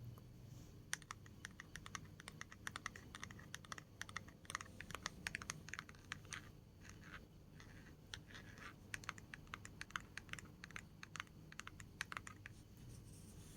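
Close-miked ASMR tapping: quick, irregular light taps and clicks, several a second, coming thick and fast after about a second and thinning out near the end.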